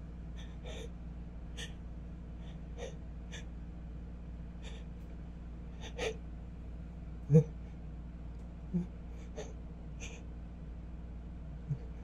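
A person's short, sharp gasping inhalations and sniffs as a sneeze builds but won't come out, about one a second, with a few brief voiced catches in the throat, the loudest about halfway through.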